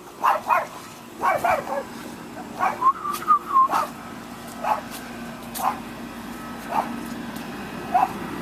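A dog giving short whines and yips, about eight in all, with one longer whine about three seconds in.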